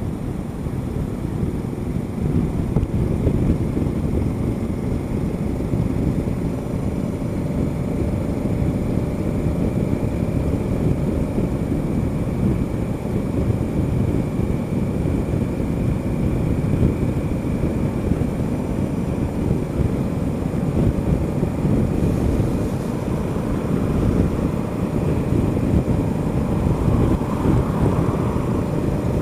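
Honda Africa Twin CRF1000L's parallel-twin engine running steadily at highway cruising speed, under heavy wind buffeting on the bike-mounted microphone. Near the end a passing car adds a swell of noise.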